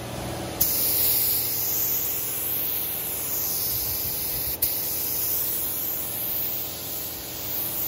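Iwata paint spray gun spraying base coat: a steady hiss of compressed air and atomised paint, broken briefly about four and a half seconds in.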